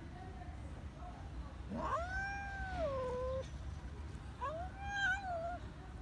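Adult cat giving two long, drawn-out angry yowls, one about two seconds in and another near five seconds, each rising and then falling in pitch. It is the hostile call of a mother cat turning on her own kittens.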